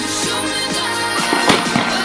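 Background music with a steady beat, with a firework bang about one and a half seconds in.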